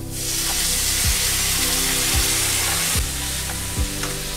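Hot oil in a kadai of frying sliced onions and cashews sizzles loudly as a tablespoon of water goes in. The sizzle starts suddenly and then holds steady, over background music with a low beat about once a second.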